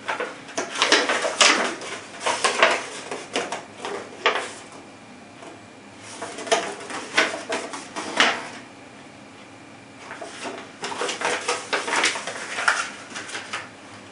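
Box contents and packaging of an airsoft gun being handled: rustling with light knocks and clatters, in three bursts separated by quieter gaps.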